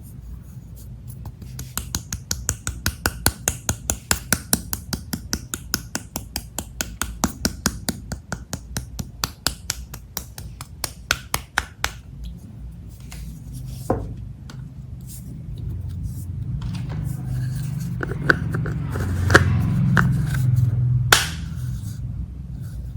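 Hands working clear slime, making a quick, even run of sticky clicks and pops, about four a second. About halfway through the clicks become slower and scattered, and near the end there is a louder stretch of squishing and crackling.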